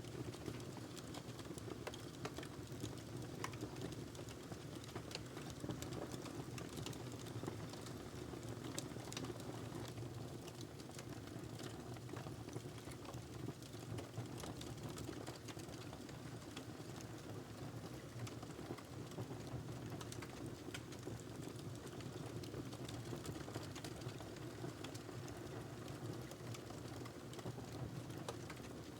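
Wood fire burning in a fireplace: logs crackling with irregular sharp pops over a steady low rumble of flames.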